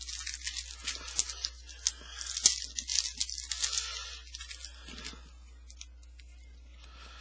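A trading card pack's wrapper being torn open and crinkled, a dense run of tearing and crackling for the first four seconds or so, then quieter handling.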